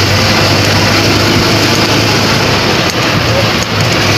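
Engine of a small open-sided canopy vehicle running steadily on the move, a constant low hum with road and wind noise.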